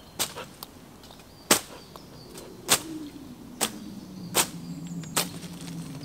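The back of a folding saw swung through stinging nettles: sharp swishing whacks, about one a second, as the nettles are hacked down.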